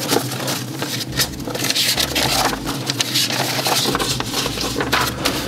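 Paper rustling and scratching as a hand brushes and rubs over a spiral-bound planner page, in a quick irregular run of strokes.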